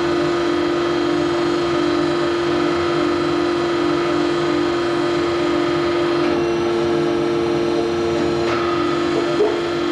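Machine tool running with a steady loud hum. A second, higher tone comes in about six seconds in and stops about two seconds later, and there is a short knock near the end.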